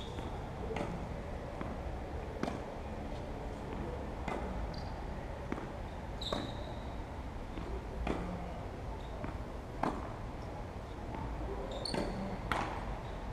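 Tennis ball struck by rackets and bouncing on the court during a rally: a series of sharp, short knocks, roughly one every second, over a steady low background noise.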